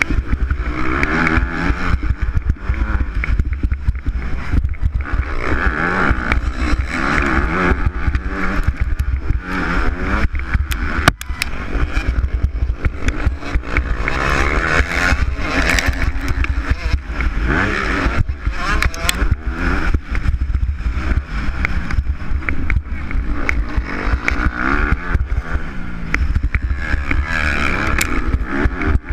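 Motocross bike engine heard on board at race pace, revving up and dropping again and again as the rider works through the gears, with a steady wind rumble on the microphone.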